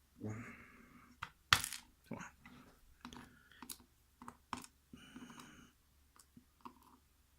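Small metal clicks and taps from handling lock pins and tools while a Corbin pin-tumbler lock cylinder is taken apart. The clicks are irregular, with one sharper click about one and a half seconds in.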